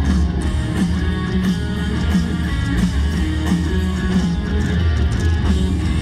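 Live rock band playing loud through a concert PA, heard from within the crowd: electric guitar to the fore over a heavy bass line and a steady drum beat.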